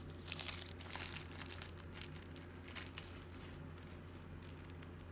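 Light clicking and rustling of jewelry pieces and their plastic bag being handled and sorted, busiest in the first couple of seconds, over a steady low hum.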